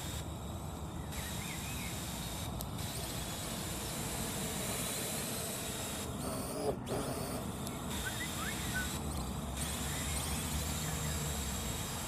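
Parrot AR.Drone quadcopter's rotors buzzing steadily as it flies, with one brief thump a little past halfway.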